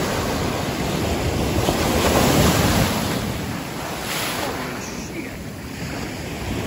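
Ocean surf washing onto the shore, the rush of a breaking wave swelling to its loudest about two seconds in, then easing.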